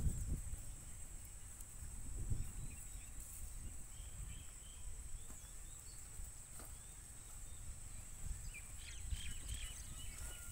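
Faint outdoor ambience: a low rumble, a steady high-pitched whine, and a few faint bird chirps about three seconds in and again near the end.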